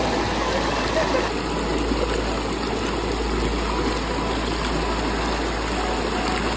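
Fast, shallow mountain river water rushing and splashing over rocks, a steady rushing noise.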